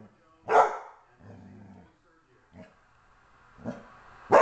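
Catahoula Leopard Dog barking and growling at a snowman-shaped candle holder. A single sharp bark about half a second in is followed by a low growl, a soft huff or two, and another loud bark at the very end.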